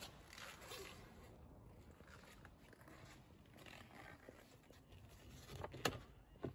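Very quiet handling noise: faint scattered rustling, with one sharp click near the end and a softer one just after.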